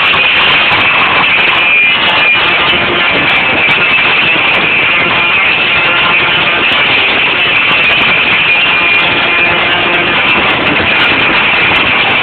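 Live band music played loud through a concert sound system, recorded as a steady, overloaded and distorted wash of sound.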